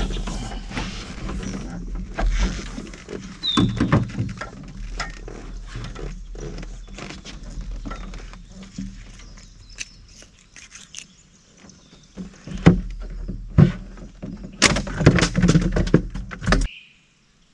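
Knocks, clicks and rustling of hands and fishing tackle being handled in a small boat, over a low steady rumble. The loudest run of knocks comes near the end, then the sound cuts off suddenly; a bird chirps briefly early on.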